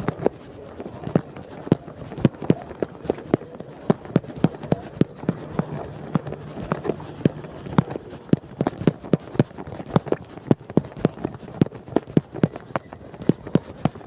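Footsteps: quick, sharp clacks on a hard floor, several a second and unevenly spaced.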